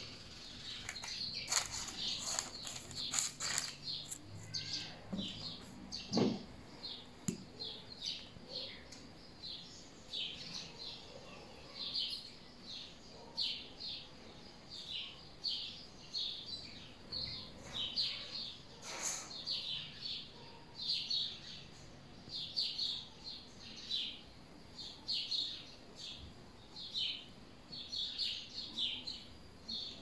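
Small songbirds chirping: a continuous run of short, high chirps, several a second, with a few light taps in the first few seconds.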